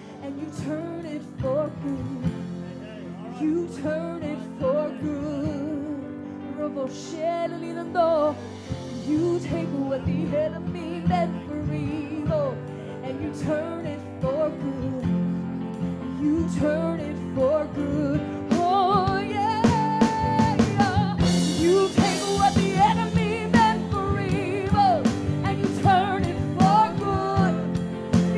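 Live worship music from a church praise team: women singing a slow melody over keyboard chords, with the drums and cymbals growing busier in the second half.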